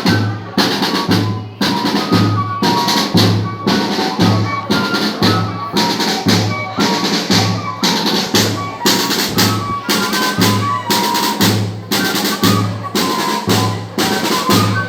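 Banda de pífanos playing: cane fifes carry a melody of short held notes over a steady zabumba bass-drum beat and snare-drum strokes.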